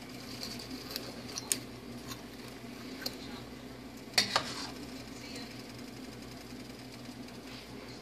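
Metal clinks and clicks of a turkey being basted in a roasting pan on the oven rack: a few light taps, then two sharper clinks about four seconds in, over a steady low hum.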